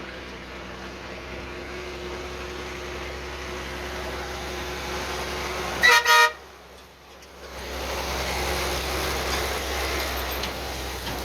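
Military 6x6 truck's diesel engine running steadily, broken about six seconds in by two short, loud horn blasts close together. After a brief lull the engine noise comes back louder.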